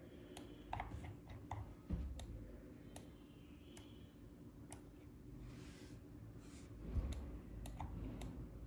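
Irregular computer mouse and keyboard clicks, about a dozen sharp clicks spaced unevenly, with a brief soft rustle a little past five seconds in.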